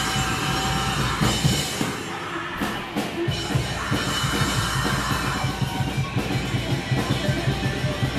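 A live rock band playing: electric guitars, bass and drum kit. The bass and drums briefly thin out and then come back in with a fast, steady beat about three seconds in.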